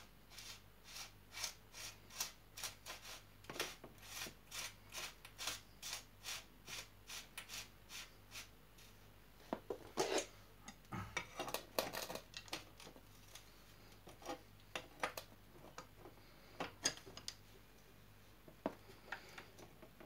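Short scraping strokes, about three a second, as a bottom bracket cup is spun by finger into the threads of the frame's bottom bracket shell. About ten seconds in, louder irregular metal clinks and clatter of tools being picked up and handled, then a few scattered clicks.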